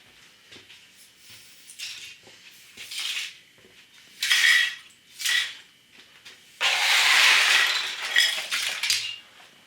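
Broken computer parts being rummaged through by hand: hard plastic and metal pieces clinking and scraping in several short bursts, then a longer spell of shifting and scraping debris.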